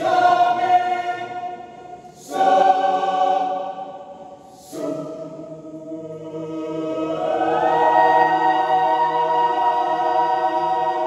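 Mixed choir singing sustained chords. Three phrases begin about two seconds apart, then the voices slide upward into one long held chord.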